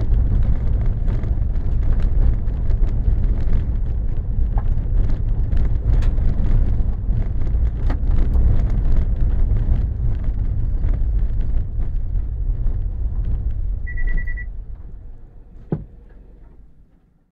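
Car driving, heard from a dashcam inside: a steady low rumble of engine and tyres with scattered clicks and knocks. About 14 seconds in a short electronic beep sounds, then the rumble dies away, with a single thump near the end.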